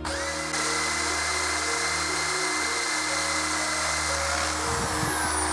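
Electric drill spinning up and running at a steady high whine as its twist bit bores a hole through the wall of a 4-inch PVC pipe. About four and a half seconds in the trigger is released and the whine falls in pitch as the drill winds down.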